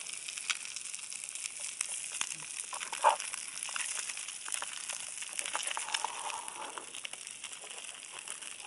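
Light crackling and rustling over a steady high hiss, with many small clicks and one brief louder sound about three seconds in.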